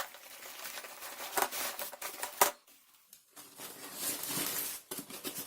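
Paper bag rustling and crinkling as a bunch of fresh coriander is pushed into it, with a sharp tap about two and a half seconds in, a short pause, then more rustling.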